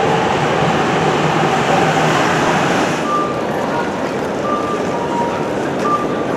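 Electric train running on the tracks at a busy station, a steady loud rolling noise that eases a little after about three seconds, when short high tones start coming and going.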